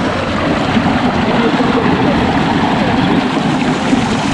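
Water rushing steadily down a water slide's starting chute, a loud, continuous noise.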